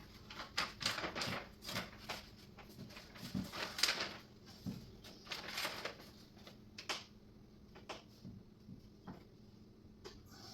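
Irregular small clicks, taps and rustling from cabinet panels and hardware being handled during flat-pack assembly, busy for the first six seconds, then a few scattered knocks.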